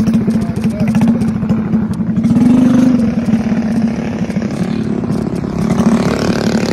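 A mini bike's small engine running close by with a fast, even pulse, swelling briefly as it is revved about two and a half seconds in.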